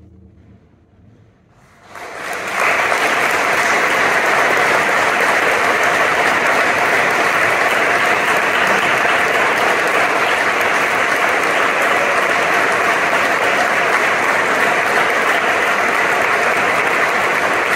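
The choir's last chord fades out, then about two seconds in a large audience breaks into applause, which goes on steadily.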